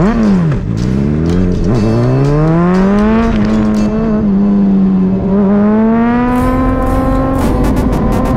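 Sport bike engine revving hard: a quick throttle blip, then revs climbing and held high, dipping for a moment and climbing again to a high steady pitch.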